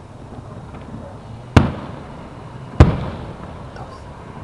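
Two aerial firework shells bursting, two sharp bangs a little over a second apart, each trailing off over about a second.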